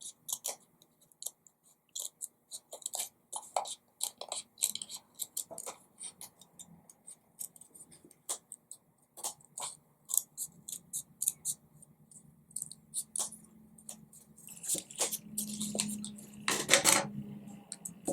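Scissors snipping through a folded paper strip, a run of short, irregular cuts, with a longer, louder stretch of cutting and paper handling about three-quarters of the way through.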